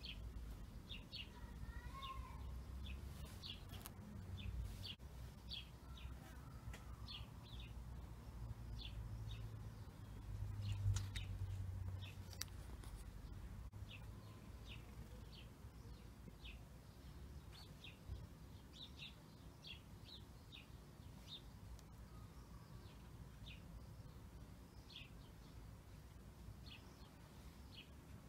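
Faint bird chirping: short, high chirps repeating irregularly throughout over a low background rumble. There is a brief louder noise about eleven seconds in.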